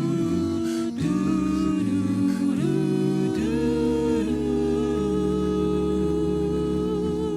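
An a cappella vocal ensemble singing wordless sustained chords in close harmony over a deep bass line. The harmony shifts a few times, then settles on one long held chord near the end.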